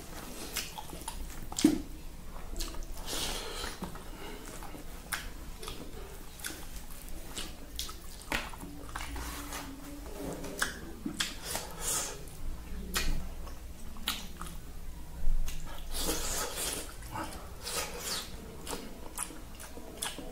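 Eating by hand: fingers squishing and scraping food around a plastic plate, with mouth sounds of eating, as a run of irregular small wet clicks. Two sharper clicks stand out, one about two seconds in and one about three-quarters of the way through.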